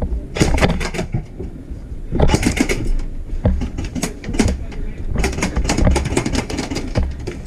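Paintball markers firing in rapid strings of sharp cracks. There is a burst about half a second in, another at about two seconds, a few single shots, then a longer, faster string from about five seconds.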